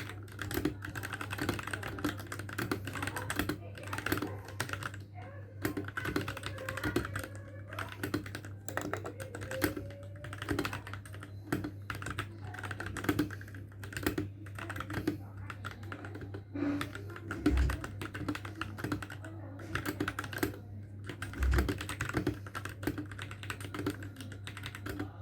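Typing on a Royal Kludge RK61 60% mechanical keyboard with lubed switches: an irregular run of key clicks and clacks at a slow pace, with a couple of deeper thumps late on.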